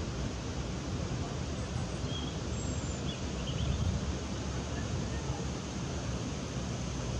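Wind buffeting the microphone over a steady outdoor hiss, with a few faint, short high chirps about two to four seconds in.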